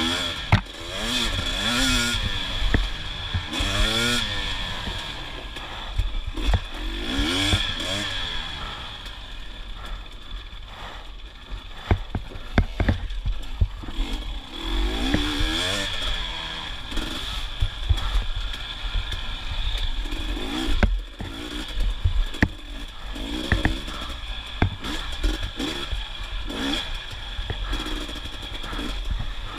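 2022 KTM 250 XC TPI two-stroke dirt bike engine revving up and falling back again and again, with sharp knocks and clatter scattered throughout.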